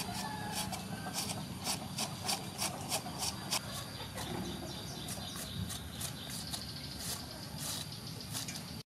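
Red cabbage being shredded with a hand-held shredding peeler: quick scraping strokes of the blade across the cabbage, about three a second, in a steady rhythm that breaks off briefly near the end.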